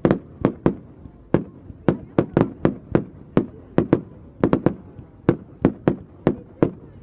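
Fireworks display with a rapid, irregular string of sharp bangs, about three a second.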